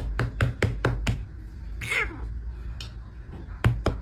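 Quick sharp knocks or taps, about five a second, then a short cry falling in pitch about two seconds in, and another fast run of knocks near the end.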